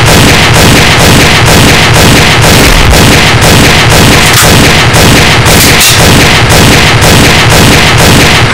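Loud, heavily compressed background music with a driving beat of heavy hits, about two to three a second.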